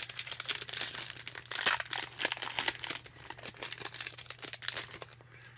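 Trading card pack wrapper crinkling and tearing as it is opened by hand, a dense crackle that stops about five seconds in.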